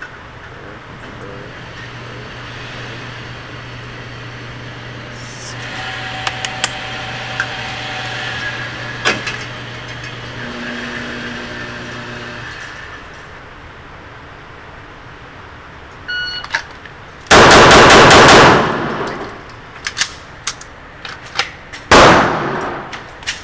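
Motorized target carrier running with a steady low hum while it brings a paper target back along the overhead track. The hum stops about 12 s in. About 17 s in a rapid string of pistol shots echoes through the indoor range, and another loud burst of shots comes about 22 s in.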